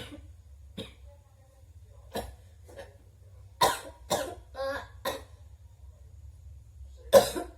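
A young woman coughing again and again in short, separate coughs, a quick cluster of them in the middle and the loudest near the end: a staged, put-on cough.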